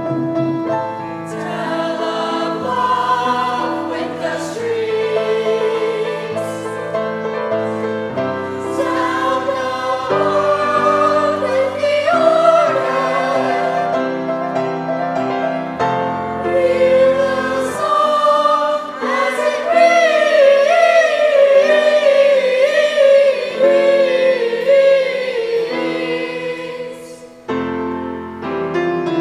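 Choir singing with piano accompaniment, the voices swelling louder in the second half; the singing drops off a couple of seconds before the end as the piano carries on.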